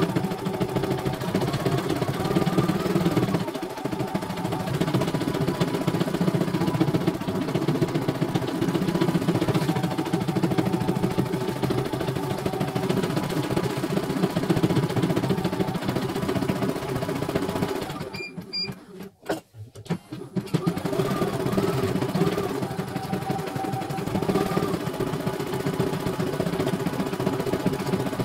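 CNY E900 computerized embroidery machine stitching a design, a fast steady needle rattle. About two-thirds of the way through it stops for a couple of seconds, with two short high tones, then starts stitching again.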